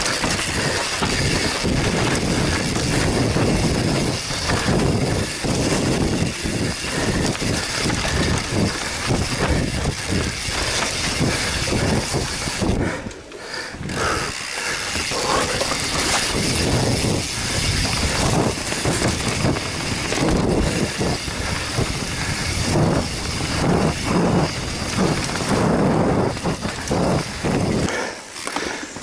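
Mountain bike ridden fast down a dirt forest trail, filmed on a body-mounted action camera: wind rushing over the microphone with tyres on dirt and the bike knocking and rattling over bumps. The rush drops away briefly about halfway through and again near the end.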